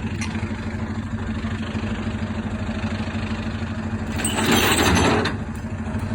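Truck engine running steadily to power a hiab lorry crane as a car is lifted, with a louder rushing hiss about four seconds in that lasts a little over a second.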